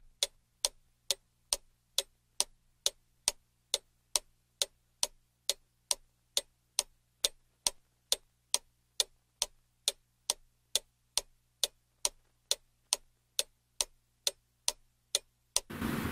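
Regular, evenly spaced sharp ticks, a little over two a second, over a faint steady low hum; the ticking stops abruptly near the end.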